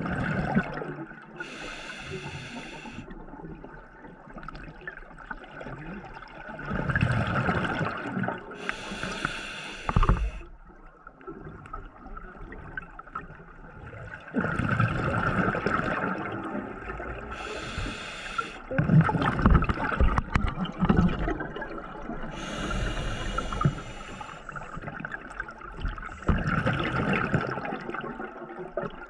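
Scuba diver breathing underwater through an open-circuit regulator: a short hiss on each inhalation, every few seconds, alternating with gurgling bursts of exhaled bubbles.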